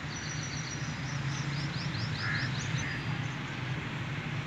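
A small bird chirping high and quick, a run of about half a dozen short notes between one and three seconds in, over a steady low background rumble.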